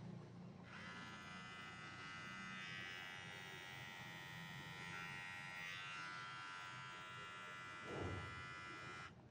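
Xiaomi Beard Trimmer 2 running: a steady high-pitched buzz that starts under a second in and cuts off just before the end, with a thump near the end.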